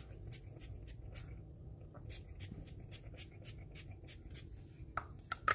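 Makeup setting spray misted from a hand-held spray bottle onto the face: a quick run of short hissing spritzes, about three a second, with a brief pause in the first two seconds.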